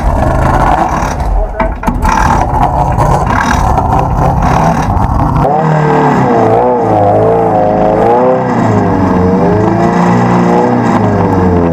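Off-road race buggy's engine running under load, rough and noisy at first. From about halfway its pitch keeps rising and falling.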